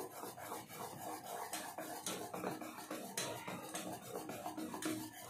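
A spoon stirring thick gram-flour (besan) dhokla batter in a steel bowl, with repeated light clicks and scrapes against the bowl, as Eno is mixed in.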